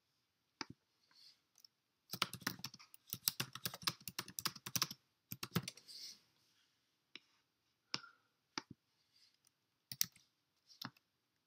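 Typing on a computer keyboard: a quick run of keystrokes from about two seconds in to about five seconds, then scattered single key presses.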